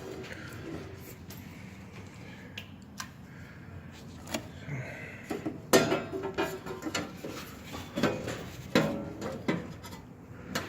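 Hard objects being handled: scattered light clicks and knocks, with a few louder clatters about six seconds in and again around eight to nine seconds in.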